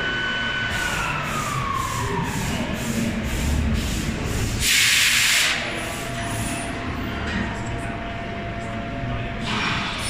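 Hundegger ROBOT-Drive timber joinery machine at work: a motor's whine winds down in pitch just after a second in, a loud rushing noise lasts about a second around the middle, and a lower steady hum follows, with another short rush near the end.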